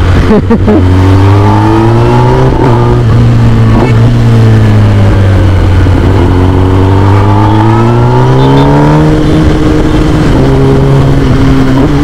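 Kawasaki Ninja ZX-10R's inline-four engine through an Akrapovic full-system exhaust, ridden along with the engine note rising and falling with the throttle. It climbs for a couple of seconds early, eases off, climbs again for about three seconds, then drops suddenly about nine seconds in and holds steady.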